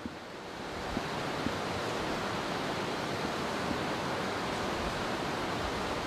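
A steady, even hiss that swells in over the first second and then holds unchanged.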